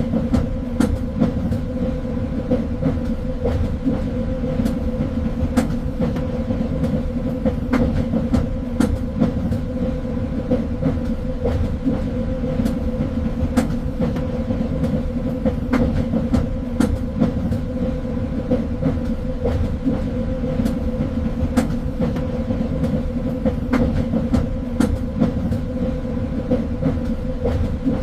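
A train running along the track with a steady rumble and hum, and frequent irregular clicks and knocks from the wheels on the rails.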